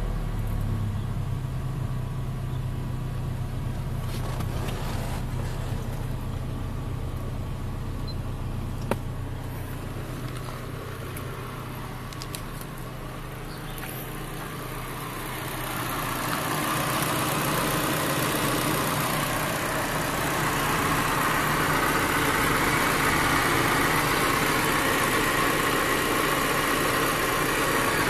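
Nissan car engine idling steadily, heard first from inside the cabin, then louder from about halfway through, heard close at the open engine bay.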